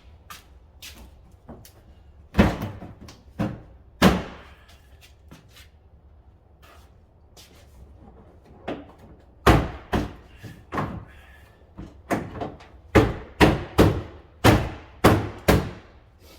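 A series of irregular metallic knocks and clunks from car body panels being handled and fitted: three spaced knocks early, then about ten quicker ones in the second half, each with a short ringing tail.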